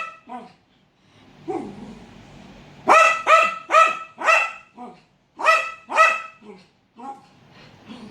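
A dog barking in bursts of high-pitched barks: a quick run of four loud barks about three seconds in and two more at about five and a half seconds, with softer barks in between.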